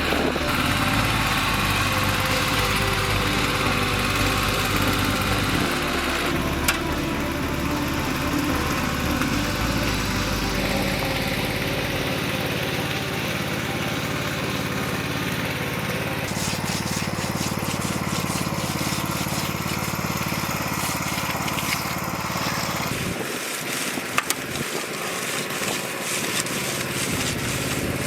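Small engine running steadily on a concrete job, its sound shifting about twelve seconds in and again near twenty-three seconds.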